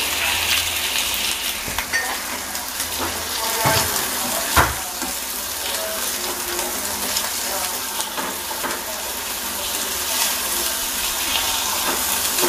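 Burger patties sizzling in hot oil in a nonstick frying pan as they are turned over, with a plastic spatula scraping and knocking against the pan; two sharper knocks come about four seconds in.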